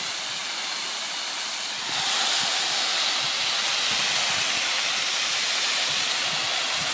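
Water spraying hard from a hose nozzle, a steady hiss as it rinses grape residue off a wine press. About two seconds in it turns louder and brighter as the spray is aimed onto the press's stainless steel cylinder.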